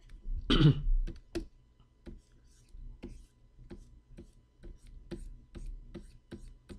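A man clearing his throat once, about half a second in. After it comes a run of light clicks, about two a second: a stylus tapping on a Wacom Cintiq pen display as short brush strokes are dabbed on.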